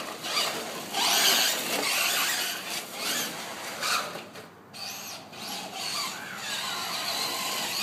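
Radio-controlled car motors whining, the pitch rising and falling as the cars speed up and slow down, over a loud, uneven rush of driving noise.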